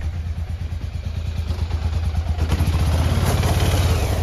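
Small vehicle engine running with a steady low throb, getting a little louder over the last second or so.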